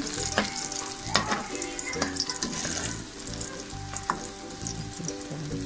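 Potato-and-onion pakoras sizzling and crackling as they deep-fry in hot oil in a wok. A slotted spoon knocks sharply against the pan a few times as it presses them, so the raw insides cook through and the pakoras turn crisp.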